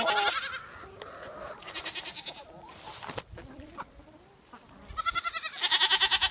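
Goats bleating with a quavering, trembling voice: a short bleat at the start, a fainter one about two seconds in, and a long, loud bleat near the end.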